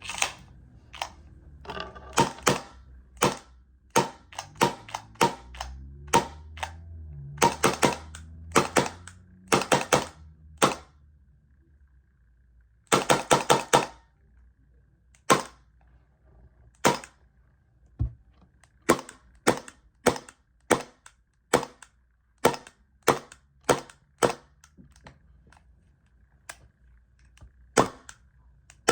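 Hudson Jericho 941 gas blowback airsoft pistol firing: dozens of sharp shots, each with the slide cycling, some spaced about half a second to a second apart and some in quick strings of four or five.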